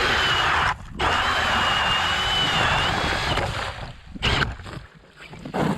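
A small engine runs hard in two bursts, a short one and then a longer one of about two and a half seconds, each a loud rushing noise with a wavering high whine, and it drops off after the second.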